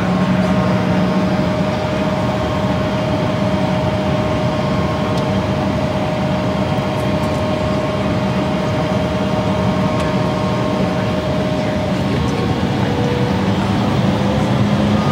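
Airliner cabin noise: the steady rumble and hum of the jet engines heard from inside the cabin. One steady tone in it changes pitch near the end.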